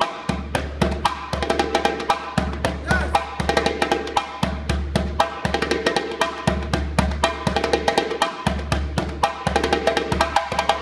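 Djembe played with bare hands in a fast, continuous solo rhythm. Deep bass strokes are mixed with sharp, crisp slaps.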